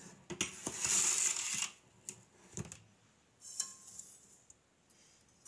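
Granulated sugar poured from a metal measuring cup into saucepans of water: a hissing pour lasting about a second and a half, then a few light clinks of metal on metal, one ringing briefly.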